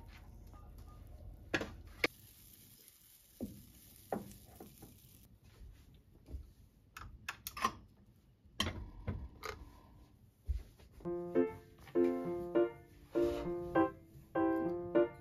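Scattered clinks and knocks of kitchenware around a frying pan and plate, with a soft hiss for a few seconds early on, then gentle piano background music starting about two-thirds of the way in.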